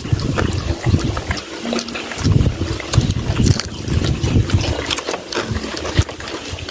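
Close-up chewing and wet mouth sounds of people eating crispy fried chicken and rice by hand, with irregular small clicks and crunches.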